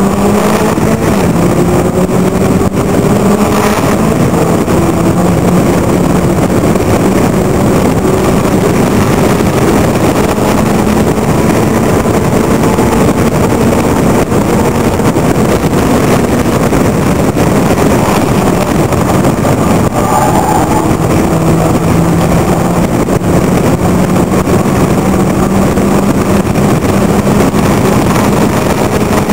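Locost race car's engine running hard at high revs, heard from its open cockpit with wind noise over it. The engine note climbs in the opening seconds, drops about two-thirds of the way through as the car slows, then rises steadily again under acceleration.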